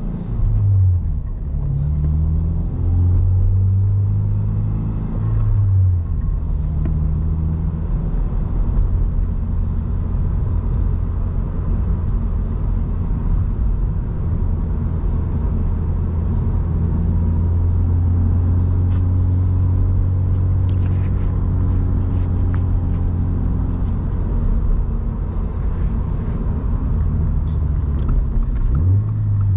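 Toyota GR86's flat-four engine through a Borla S-Type exhaust, heard from inside the cabin while driving. The engine note shifts pitch in the first second and again about six seconds in as the car changes speed, then holds a steady low note at cruise before rising again near the end.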